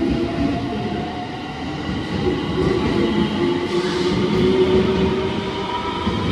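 JR West Hanwa Line electric train moving off along the platform: the whine of its electric traction motors rises steadily in pitch as it gathers speed, over the rumble of wheels on rail.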